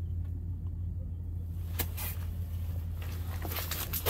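A steady, low mechanical rumble, with a single light click about two seconds in.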